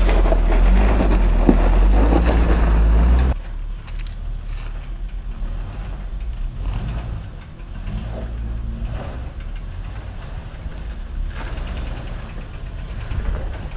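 Off-road vehicle engine running close by with a heavy low rumble, dropping suddenly about three seconds in to a quieter, steady low engine rumble at idle.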